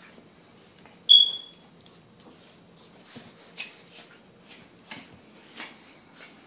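A pit bull puppy and a chihuahua play-fighting. A single short high squeal comes about a second in, then a run of brief scuffling and snapping sounds as they wrestle.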